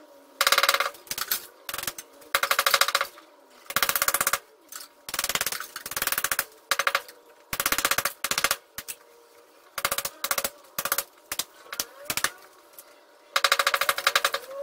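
Hammer drill boring into a plastered wall in repeated short bursts, each a rapid rattle of impacts lasting about half a second to a second, with brief pauses between them.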